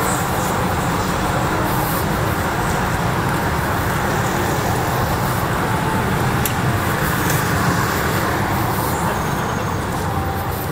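Steady road traffic noise on a busy city street: a constant rumble of passing motor vehicles.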